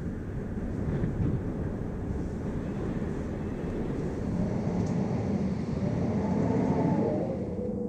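Wind heard from inside a building: a low, gusting rush that swells and eases. From about five seconds in, a whistling tone wavers up and down in pitch, then settles into a steady whistle near the end.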